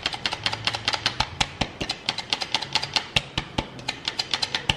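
One-hand squeeze flour sifter made of plastic, clicking rapidly and steadily, several clicks a second, as it is worked to sift flour into a glass bowl.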